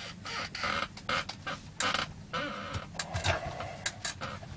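Hands working a circuit board and its cables loose inside a CRT monitor's plastic case: irregular clicks, knocks and rustling of plastic and wires.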